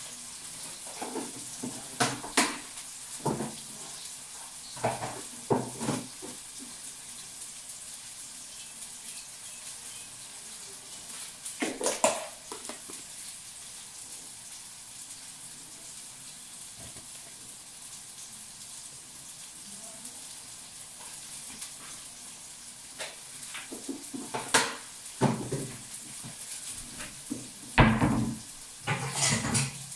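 Kitchen clatter: pots, dishes and a spoon knocking and clinking in short scattered bursts, busiest near the end, over a steady high hiss.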